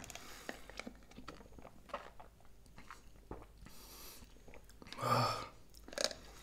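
Quiet mouth sounds of sipping a blended iced coffee through a straw and tasting it: small wet smacks and clicks. There is a breathy hiss near the middle and a short vocal sound about five seconds in.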